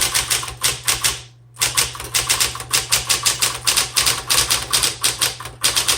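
Smith Corona Electra 120 electric typewriter typing a line: rapid key strikes, about seven a second, with a brief pause about a second in, over the steady hum of its running motor.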